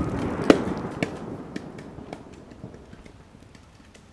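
Dying rumble of a 'garra de tigre' firecracker blast, fading over about three seconds, with a run of small sharp ticks about twice a second as it fades.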